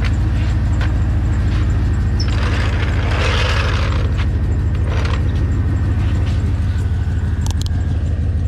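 Chevy truck engine idling steadily with a low drone, with a brief rushing hiss swelling in and out about two to four seconds in. The owner says the truck has an exhaust leak.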